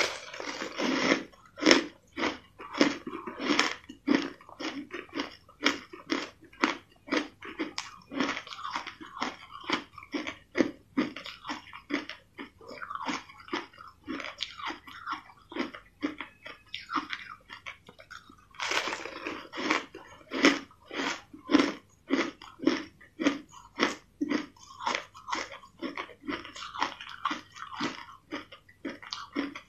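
Crushed flavoured ice being bitten and chewed in big mouthfuls: steady crunching at about two to three crunches a second. A fresh bite comes at the start and another about two-thirds through.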